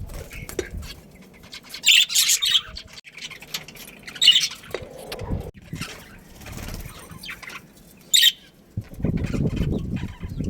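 Birds calling in short, sharp chirps and squawks about two, four and eight seconds in, with a low rustling from near the end.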